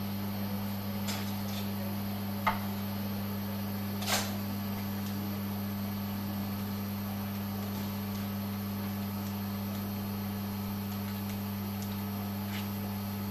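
Steady low electrical hum with a couple of light clicks, the first about two and a half seconds in.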